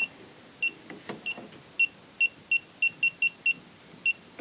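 Klein Tools ET310 circuit breaker finder receiver giving short, high electronic beeps as it is swept along the breakers. The beeps come closer together, about four a second, in the middle stretch and then space out again. The rate rises as the receiver nears the breaker carrying the transmitter's signal.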